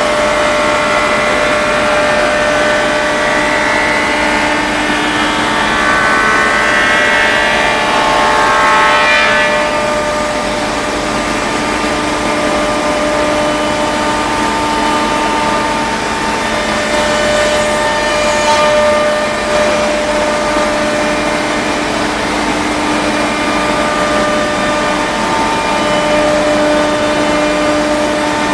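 CNC machining center's router spindle cutting a groove through a plywood panel: a loud, steady mechanical whine over cutting noise, with higher tones that rise and fall during the first ten seconds.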